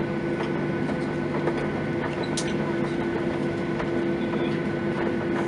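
Cabin noise inside a Boeing 737-900ER taxiing: the CFM56-7B jet engines running at low thrust, a steady rush with a constant hum and whine, heard through the fuselage. Faint irregular knocks sound over it.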